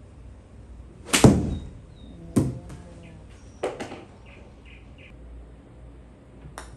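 Three sharp knocks about a second apart, each with a short ring, then a few brief high tones and a click near the end.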